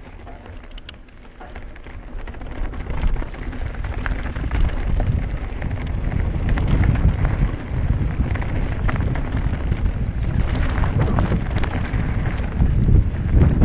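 Wind buffeting a helmet-mounted microphone as a mountain bike rolls fast down a dirt and loose-stone trail, with tyres crunching and the bike rattling in quick clicks. The rumble grows louder over the first few seconds as speed builds, then holds.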